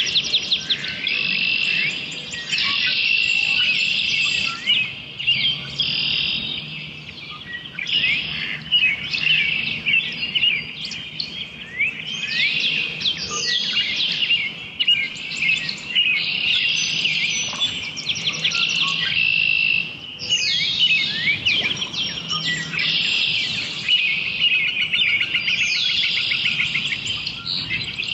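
Early-morning dawn chorus: many songbirds singing over one another in a dense, continuous mix of trills and chirps, with a faint low steady hum beneath.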